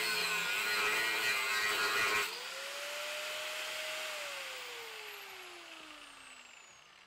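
Angle grinder cutting through a steel bracket on a car subframe, a harsh grinding noise. About two seconds in the disc comes free of the metal and the motor's whine rises and holds. It then falls away in pitch as the grinder is switched off and spins down.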